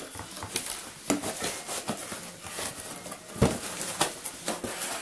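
Cardboard shipping box being opened by hand: packing tape pulled and flaps folded back. It makes a run of scrapes and rustles, with a sharper knock about three and a half seconds in.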